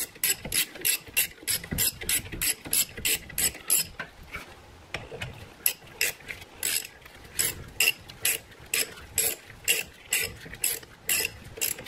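Hand ratchet clicking as it drives a brake caliper bolt in, a rapid, even run of clicks with a short pause about four seconds in.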